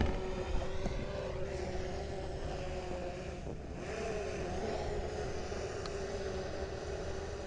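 Quadcopter drone's propellers humming steadily, the pitch wavering briefly about halfway through, over a low rumble of wind on the microphone.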